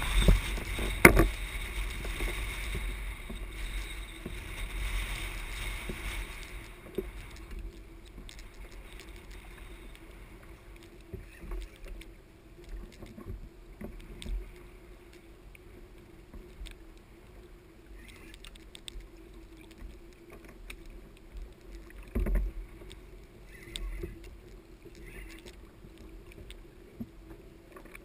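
Sea water slopping against a plastic fishing kayak's hull, louder for the first seven seconds or so, with scattered knocks on the hull, the loudest about a second in and another near the twenty-second mark.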